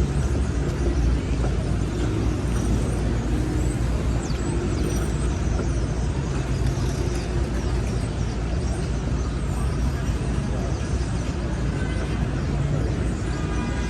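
City street traffic: a steady, unbroken rumble of passing cars and idling engines.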